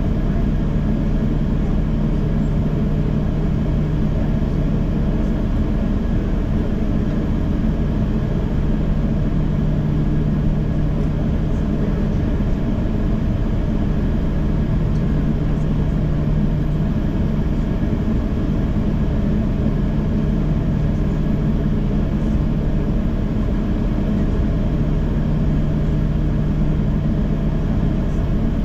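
Steady low drone of a Boeing 737-800's jet engines and cabin air, heard from inside the cabin, with a constant low hum. The engines hold one setting throughout.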